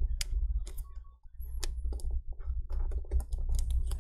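Irregular small clicks and taps of fingers working a laptop display cable's 40-pin connector into its socket on an LCD panel, over a low steady hum.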